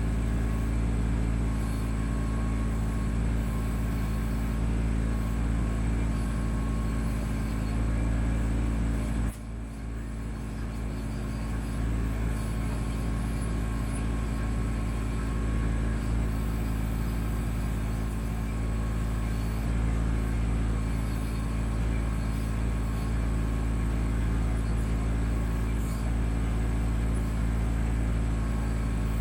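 Kubota B2650 tractor's three-cylinder diesel engine running steadily while the BH77 backhoe is worked; the level drops suddenly about nine seconds in and builds back up over a couple of seconds.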